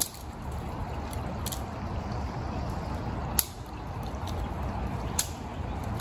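Creek water running steadily over a shallow, rippling bed, with a low rumble underneath. Three short sharp clicks or snaps cut through: at the start, about three and a half seconds in (the loudest), and a little after five seconds.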